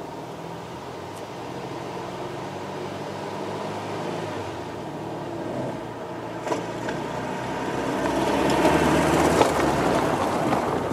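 Air-cooled flat-four engine of a 1968 Volkswagen Beetle, together with a second car, running as they drive up. The sound grows louder and is loudest about eight to ten seconds in as a car passes close by, then fades.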